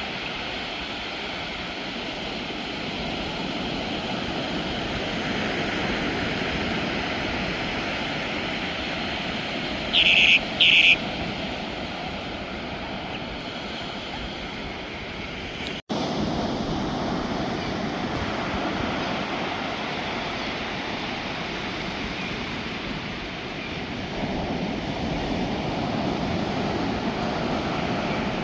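Ocean surf washing in steadily. About ten seconds in come two short, loud, high-pitched calls in quick succession, and the sound drops out for an instant a little before halfway.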